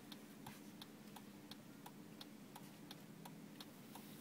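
A car's turn-signal flasher ticking steadily, a louder tick about twice a second with fainter ticks between, over the low steady hum of the idling car.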